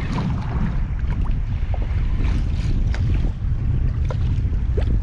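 Wind buffeting the microphone in a steady low rumble, with small waves lapping and splashing against a kayak hull.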